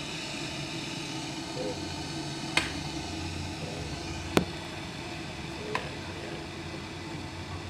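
Three short sharp clicks, about a second and a half apart, from the power switch of a Hanabishi electric kettle being worked, over a steady low hum and hiss.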